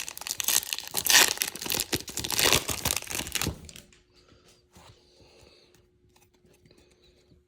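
A foil trading-card pack wrapper is torn open and crinkled for about three and a half seconds. Then come a few faint clicks of cards being handled.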